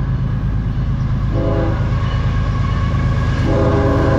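Horn of a CSX GE ES44AC-H diesel locomotive leading a freight train: one short chord blast about a second and a half in, then a long blast starting about three and a half seconds in, over the steady low sound of the approaching locomotives. It is the short-then-long end of the long, long, short, long grade-crossing warning.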